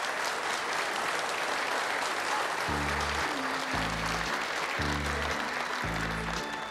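Studio audience applauding. About two and a half seconds in, a song's instrumental intro starts underneath, with low bass notes in a slow, even beat of roughly one a second.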